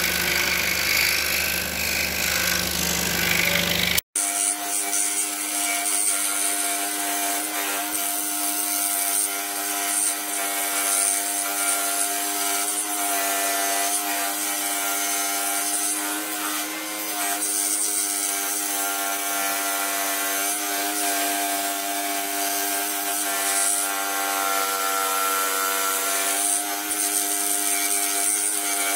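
Pégas 21-inch precision scroll saw running, its blade sawing through a thin piece of wood as it is fed along the outer outline. About four seconds in the sound breaks off for an instant and returns as a steadier hum with several steady tones.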